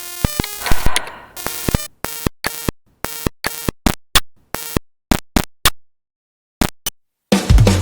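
Electronic music: a run of short synthesizer blips and stabs with gaps between them, then about seven seconds in a loud full-band track with a heavy beat comes in.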